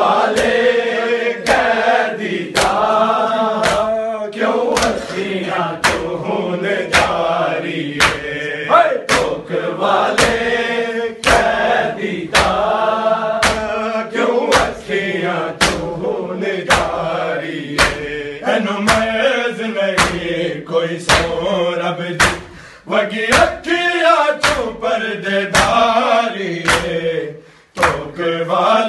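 Men's voices chanting a Punjabi noha, with a steady beat of open-hand slaps on bare chests (matam) keeping time, a little under two a second.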